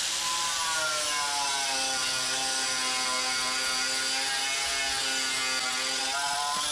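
Power tool running steadily while stripping paint and filler from a rusty steel car wing, its motor pitch sagging slightly under load and recovering.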